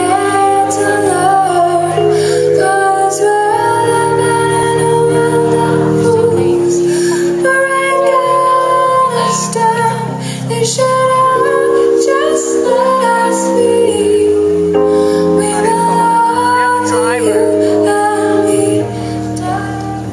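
Live pop band playing with a woman singing long held notes. The music gets quieter near the end.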